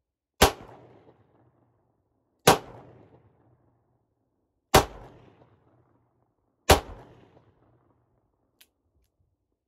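Four shots from a 9mm Rock Island Armory AL 9.0 revolver fired double action, about two seconds apart, each trailing off in a short echo. A faint click follows near the end.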